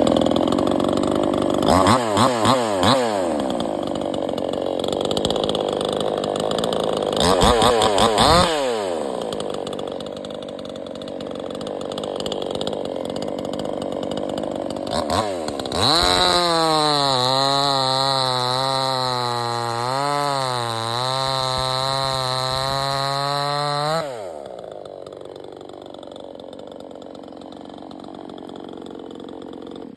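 58cc two-stroke chainsaw revved up and back down twice, then held at full throttle for about eight seconds while cutting into wood, its pitch sagging briefly under load midway. It then drops back to a quieter idle.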